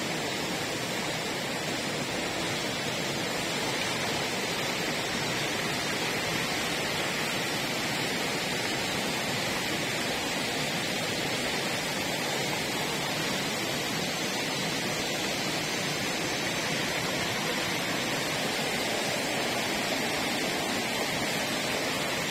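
Shallow river water running and rippling over rocks, a steady even rush.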